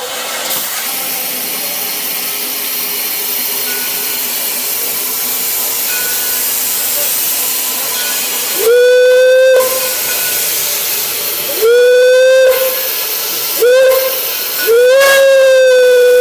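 Steam locomotive whistle blowing the grade-crossing signal, long, long, short, long, over a steady hiss of steam. The whistle belongs to Detroit & Lima Northern No. 7, an 1897 Baldwin. Each blast slides up in pitch as it starts, and the last long blast is still sounding at the end.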